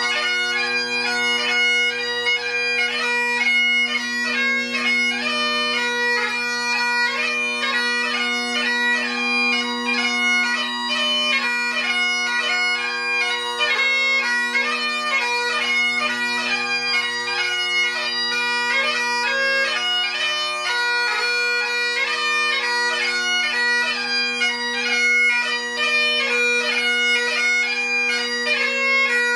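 Great Highland bagpipe playing solo. The drones hold a steady low chord under the chanter's quick-changing melody, with no break.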